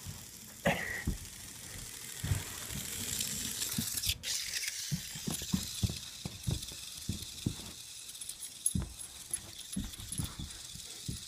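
Bernese mountain dog pawing and nosing at a small robot bug toy on carpet: a run of soft, irregular thumps and taps, with a brief rising squeak about a second in.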